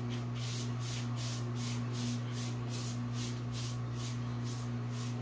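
Paintbrush swishing back and forth as it spreads chalk paint over a wooden dresser top, about three strokes a second, over a steady low hum.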